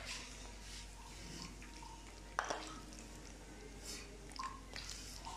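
Faint wet squishing of cooked macaroni being spooned and stirred into a creamy white sauce, with one sharp click about two and a half seconds in.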